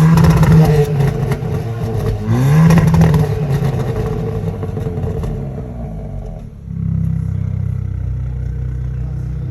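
Hyundai i20 N's 1.6-litre turbocharged four-cylinder revved twice through its loud exhaust, each rev rising and falling with crackling pops as the revs drop. About two-thirds through it settles into a low, steady rumble.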